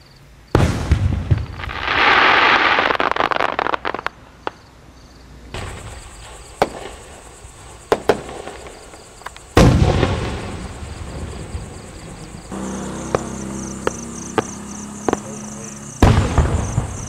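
Aerial fireworks shells bursting: three sharp booms, about half a second in, near the middle and near the end. Scattered crackles and pops fall between them.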